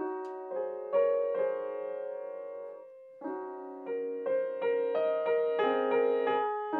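Grand piano played solo: single notes and chords struck and left to ring in a slow, lyrical phrase. About three seconds in the sound dies away briefly, then notes come more quickly, about two or three a second.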